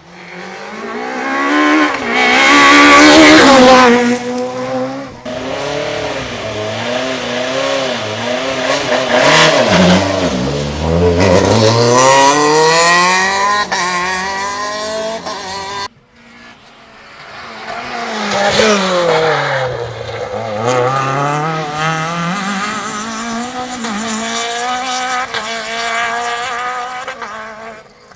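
Rally car engines at full competition revs, in two passes: the pitch climbs in steps through the gears, drops sharply on braking and downshifts, then climbs again. The first pass cuts off abruptly about halfway through, and a second builds up and runs to the end.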